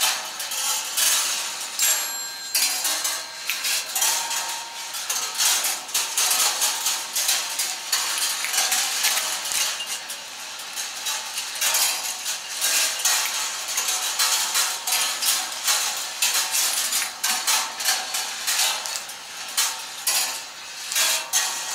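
Rolling-ball kinetic sculpture running: metal balls clicking and clinking along its steel wire rails and through its gear and chain mechanisms, a continuous dense clatter of small metallic ticks.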